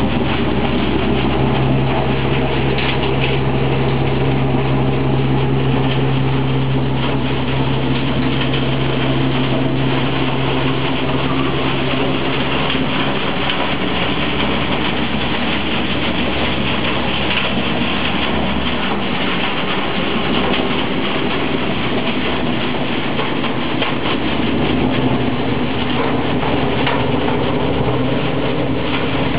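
Hay blower running steadily, air and second-cut hay rushing through the telescopic distribution pipe with a dense hiss over a steady low fan hum. The hum weakens about halfway through and comes back near the end.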